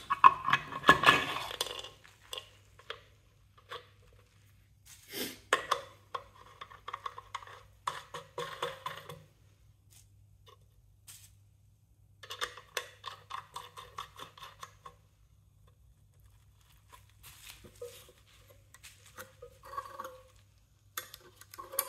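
Clicks and rattles of an Alvey 650A side-cast fishing reel being reassembled by hand: the plastic spool and its metal backplate and reel-foot clamp knocking together in several short spells with quiet gaps. A faint steady low hum runs underneath.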